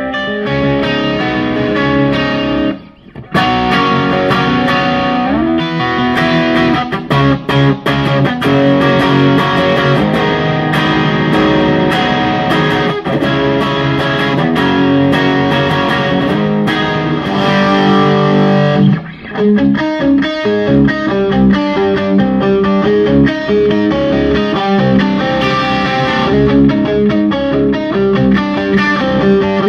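Electric guitar played through the Bad Cat Siamese Drive overdrive pedal into a Bad Cat combo amp, chords and riffs at a medium-gain overdrive, moving later to a higher-gain crunch setting. The playing stops briefly about three seconds in.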